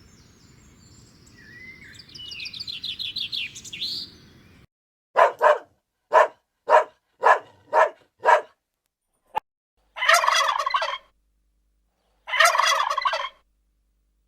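Domestic turkey calling. A quick run of high chirping notes comes first, then about seven short sharp calls half a second apart, then two gobbles lasting about a second each.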